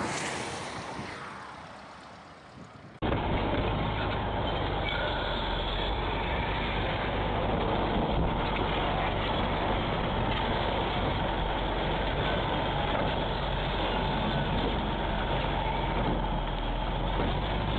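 A noisy hiss fading away, then, after an abrupt cut about three seconds in, an engine running steadily at a constant rumble.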